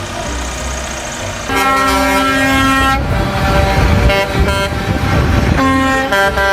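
Multi-tone bus air horn of the 'telolet' kind. It sounds sustained chords from about a second and a half in, changing notes about three and five and a half seconds in, over a low engine rumble.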